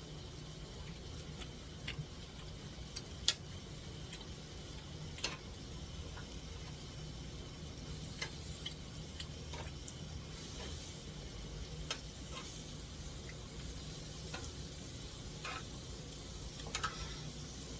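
Scattered light clicks and taps of tableware, chopsticks and dishes at a meal, over a steady low hum from a running air conditioner.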